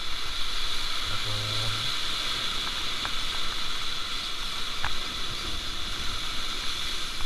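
Sea surf washing over a rocky shore, a steady hiss of waves, with a short low hum about a second and a half in and a few faint clicks.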